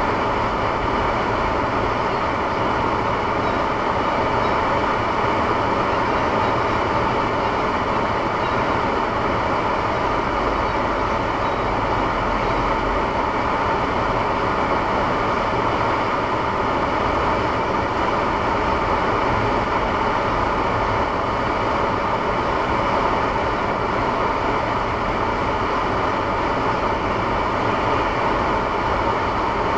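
Steady vehicle noise from a Honda Civic, engine and tyres running at an even level, heard through a dash camera inside the car.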